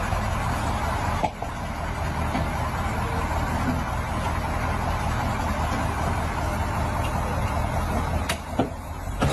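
Engine of a heavily loaded log truck running steadily as it crawls over a steep dirt track, with a short click about a second in and another near the end.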